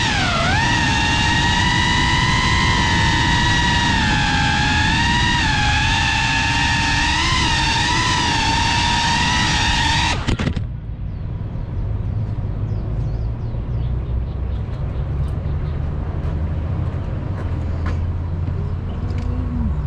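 FPV racing quadcopter's motors whining, the pitch dipping and rising as the throttle changes. About halfway through, the whine cuts off abruptly, leaving a low, steady rumble.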